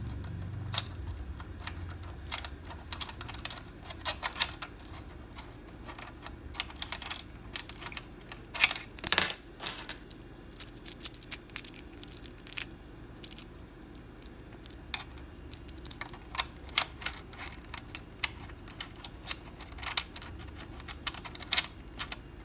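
Small metal camera-rig parts clicking and clinking as a SmallRig cable clamp and its screws are handled and tried against a camera cage; scattered sharp clicks, with a louder cluster about nine seconds in.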